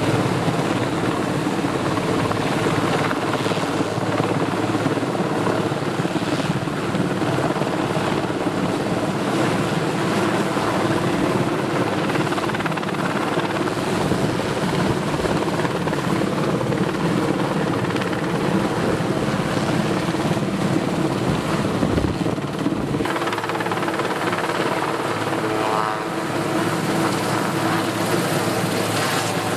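Helicopter rotor and engine running steadily as it carries a gondola tower section slung on a long line.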